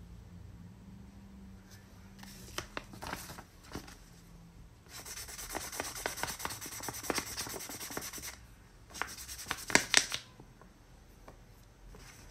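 Derwent pastel pencil drawn across paper: a dry, scratchy rubbing in rapid strokes for about three seconds, then a shorter, louder burst a second later.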